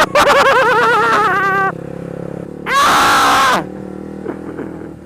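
A man's wavering, warbling screams, twice: a long one of well over a second, then a shorter one a second later, very loud on the microphone. A motorcycle engine runs steadily underneath.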